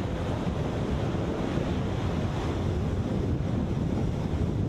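Steady rushing of wind and sea, heaviest in a deep rumble, with wind buffeting the microphone.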